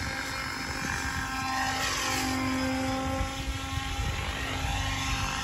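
Banshee 850 radio-controlled helicopter in flight: a steady whine of several tones from its motor and rotor, with the rotor swish swelling and fading as it climbs away from the ground.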